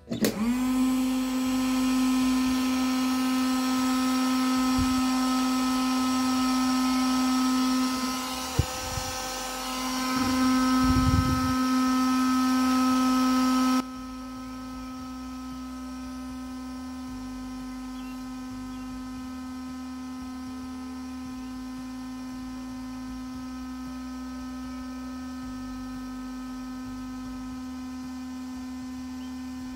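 Parkside PHLGA 20 Li-A1 cordless heat gun switched on at its maximum 550 °C setting: the fan motor spins up and then runs with a steady hum. About 14 seconds in, it drops abruptly to a lower level but keeps running evenly.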